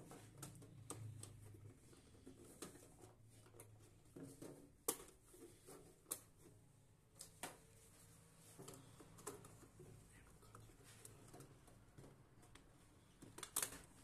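Plastic cover strips being pressed and snapped onto slotted PVC wiring ducts: faint scattered clicks and taps, the sharpest about five seconds in and a quick cluster near the end.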